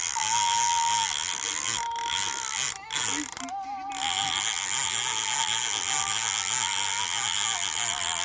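Fishing reel ratcheting steadily under the pull of a hooked shark on the line, breaking off briefly about three seconds in.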